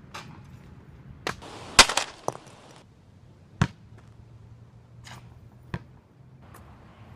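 A handful of sharp knocks and clacks of hard objects at uneven intervals, about seven in all, the loudest nearly two seconds in.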